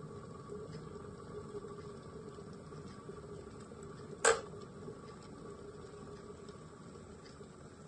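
Electric kettle heating water: a steady hum and hiss, with one sharp click about four seconds in.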